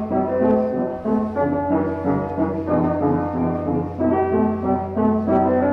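Instrumental boogie music: chords of held notes changing in a steady rhythm, over a constant low hum.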